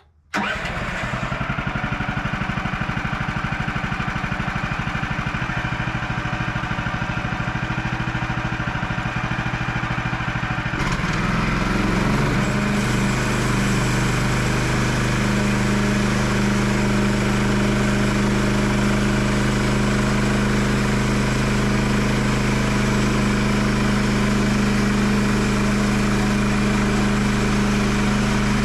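The Woodland Mills HM130 Max sawmill's gas engine running at a low, steady idle, then throttled up about eleven seconds in and held at a steady higher speed.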